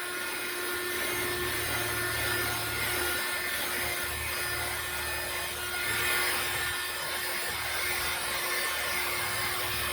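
Cordless handheld wet/dry car vacuum running steadily with a constant motor whine, sucking up debris from the car.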